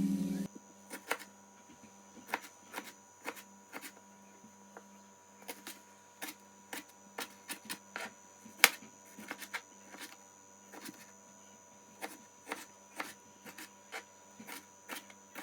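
Irregular light clicks and knocks, one sharper than the rest about eight and a half seconds in, over a faint steady hum.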